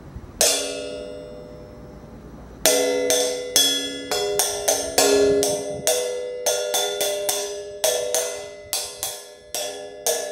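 Hand-held cymbal struck with a paintbrush: one ringing strike about half a second in, then a quick, uneven run of more than twenty strikes, each left to ring.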